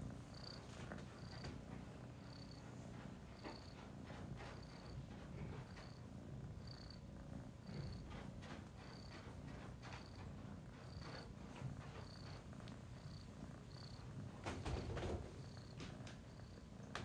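Tabby kitten purring steadily and softly while being stroked, with a brief rustle of handling about fifteen seconds in.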